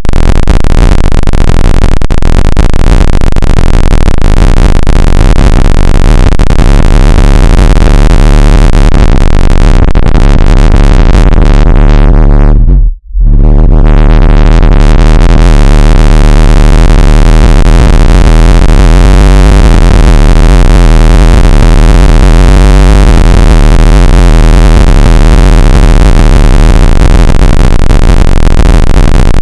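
Loud, harsh synthesized electronic noise: a dense buzzing drone with hiss over the whole range, at the very top of the level scale. It cuts out briefly about thirteen seconds in, then comes straight back.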